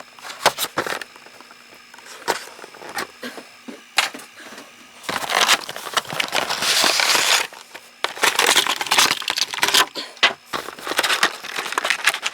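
Toy packaging being opened by hand: cardboard and plastic rustling and crinkling, with irregular clicks and handling knocks, busiest from about five seconds in.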